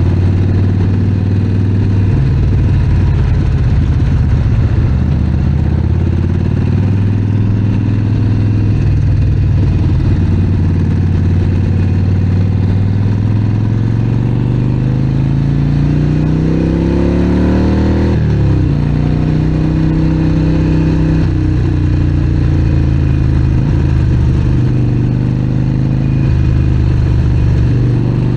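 Harley-Davidson Sportster Forty-Eight's air-cooled V-twin running through a Vance & Hines exhaust while riding. The engine note climbs steadily for several seconds past the middle, drops sharply at a gear change, and settles back to a steady pull.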